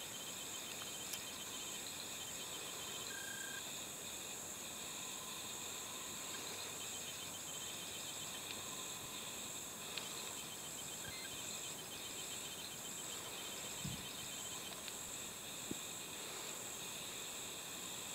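Steady high-pitched insect chorus from woodland insects, with a continuous buzz and rapid, evenly pulsed chirping. A few faint clicks and one soft low thump come about fourteen seconds in.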